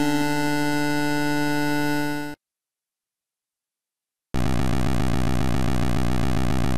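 A steady synthesized drone, the cartoon blimp's engine sound, fades out about two seconds in. After about two seconds of silence, a buzzy, pulsing synthesized tone starts for the next aircraft, a seaplane.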